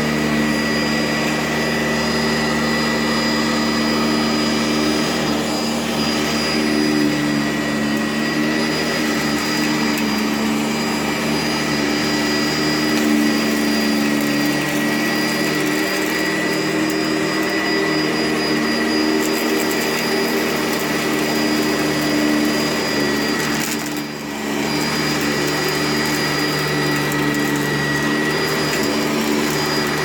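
Sanitaire SC679J commercial upright vacuum running steadily with a high whine, pushed across low-pile carpet. The level dips briefly once, about three-quarters of the way through.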